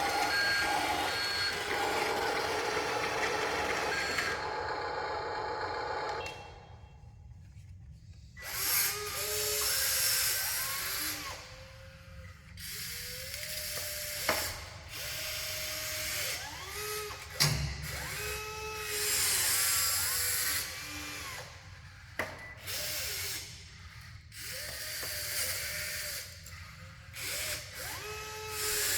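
Small electric motors of radio-controlled construction models whining in short runs, each rising in pitch, holding and falling away as the controls are worked, with occasional sharp clicks between.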